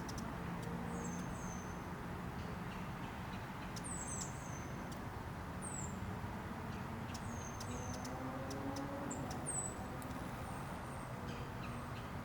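Hummingbirds giving short, high, falling chirps in scattered clusters every second or two, over a steady hiss of rain.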